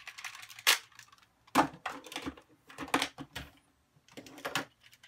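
Hard plastic parts of a White Tigerzord toy clicking and snapping as pieces are pulled off and handled, in about five short clusters of clicks.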